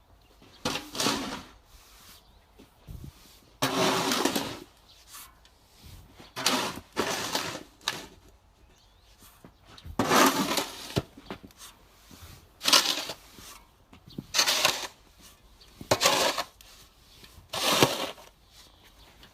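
A shovel scraping and scooping snow in a series of about eight strokes, roughly one every two seconds, with short pauses between them.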